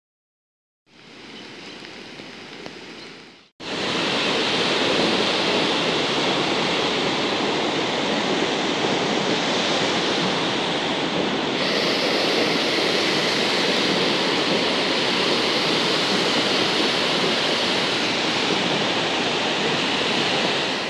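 A swollen, muddy river in flood, its fast water rushing steadily and loudly. A shorter, quieter stretch of steady noise comes first, and the water sound cuts in abruptly about three and a half seconds in.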